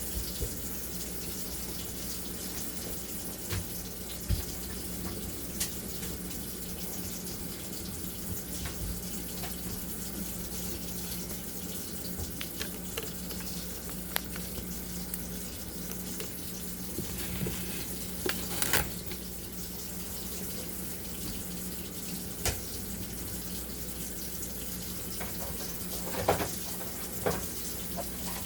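Kitchen sink tap running steadily, with a few scattered clicks and knocks of things being handled while cleaning up.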